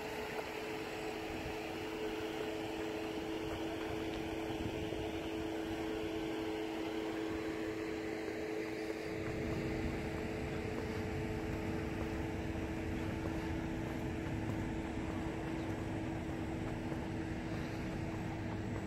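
Steady mechanical hum made of two low tones over outdoor background noise, with a low rumble coming in about halfway through.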